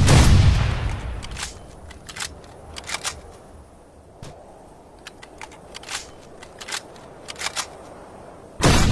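Norinco NDM-86 rifle fire: a shot fading away at the start, a few seconds of small sharp clicks and ticks, then another loud shot near the end.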